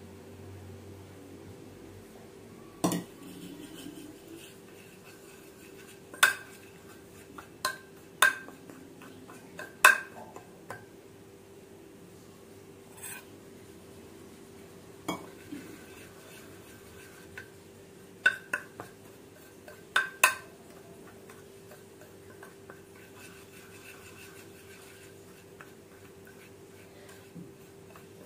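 Metal spoon and small bowls clinking, about a dozen sharp clinks with a brief ring, scattered irregularly, over a faint steady hum.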